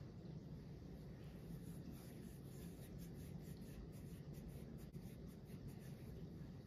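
Faint soft rubbing of palms rolling a small ball of shortbread dough, a light scratchy brushing that comes and goes over a low steady hum.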